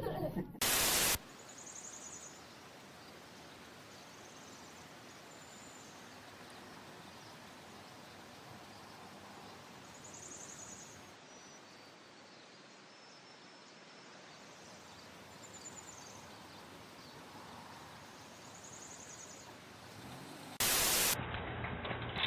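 Faint steady hiss with a few faint, short high-pitched chirps scattered through it. Two short bursts of loud static-like noise come about a second in and again near the end.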